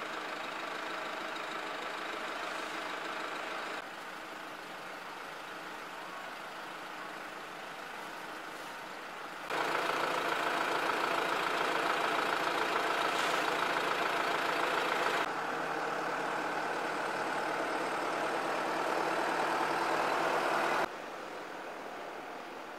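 Diesel engine of a backhoe loader running steadily at idle, its level jumping abruptly up and down a few times and loudest in the middle stretch.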